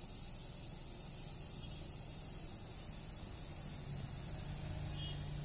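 Motorcycle engines on the road beside the track, their low hum coming up from about three and a half seconds in as they approach, over a steady high background hiss.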